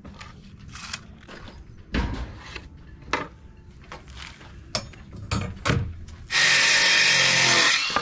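A few scattered knocks and clicks as a wooden board and tape measure are handled, then, about six seconds in, a cordless circular saw runs into the board for about a second and a half and cuts off suddenly.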